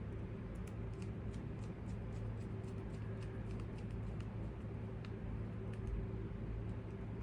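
Light, irregular clicks and ticks of a hand screwdriver turning a small screw and working against small metal parts, over a steady low hum.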